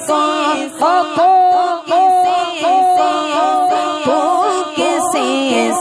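Voices singing an Urdu naat without instruments, drawing out long ornamented notes, one held steadily about a second in.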